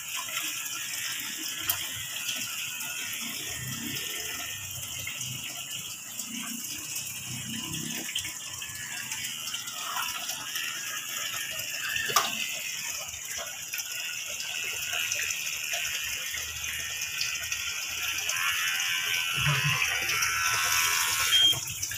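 Electric dog clippers running steadily while worked through a heavily matted coat, with a few sharp clicks.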